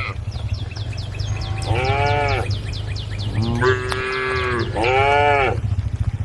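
Cattle mooing: three short calls about two, three and a half and five seconds in, over a steady low hum. A quick run of high chirps runs through the first half.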